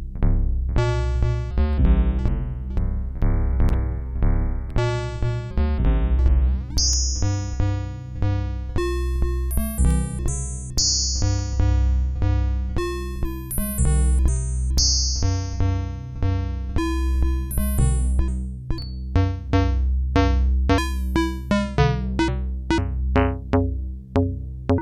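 Mutable Instruments Elements clone, a Eurorack modal-synthesis voice, playing a changing sequence of bright pitched notes over a steady low bass, with regular clicks running through it.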